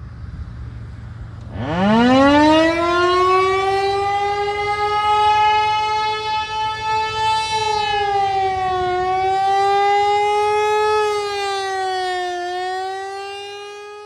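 Whelen WPS 2906 electronic outdoor warning siren sounding a steady tone: it sweeps up quickly in pitch a second and a half in, then holds with slight dips in pitch, and fades near the end.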